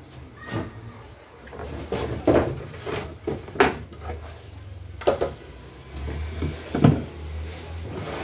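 Wooden knocks and scrapes as plywood panels of a speaker cabinet are handled and set against the box: about six separate knocks, the loudest near the end.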